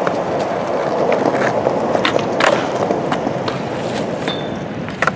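Skateboard wheels rolling steadily, with several sharp clacks of the board scattered through.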